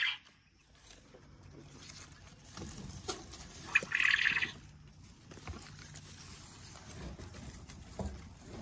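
Long leaves of a clump plant rustling as a hand pushes them aside, with a short, sharp, high-pitched burst about four seconds in.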